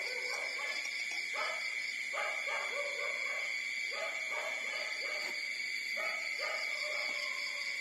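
Newborn puppies whining and crying in short, repeated high cries while nursing. A steady high-pitched tone runs underneath.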